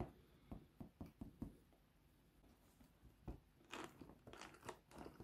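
Cardboard box handled in the hands: faint taps, knocks and fingers rubbing on the cardboard, with a run of sharper crinkling scrapes in the second half.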